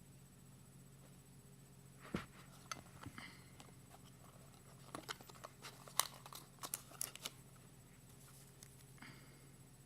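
Packaging of a new iPod Nano being handled: a string of small clicks, taps and light rustles of plastic and cardboard starting about two seconds in and dying away around seven seconds, with one more soft rustle near the end, over a faint steady hum.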